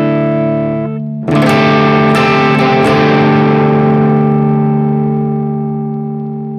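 Electric guitar (a Danelectro 59XT with Filtertron pickup) distorted by a TL071 op-amp boost with diode hard clipping, heard through a cab simulator rather than an amp. A held chord stops just under a second in, and after a short gap a new chord is struck and left to ring, fading slowly.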